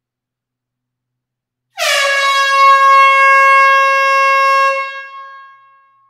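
A single long air horn blast: one loud, steady note that starts abruptly about two seconds in, holds for about three seconds, then fades away.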